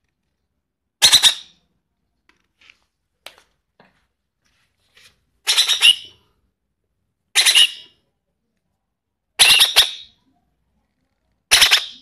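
Young hand-fed betet parakeet giving harsh begging squawks, five short raspy calls a couple of seconds apart, each a quick cluster of pulses.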